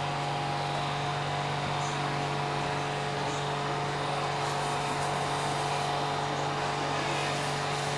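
Kitchen range hood fan running steadily: a constant hum with a few level tones over a light hiss.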